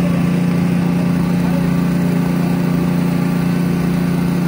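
Small engine running steadily at constant speed, an even hum with no change in pitch.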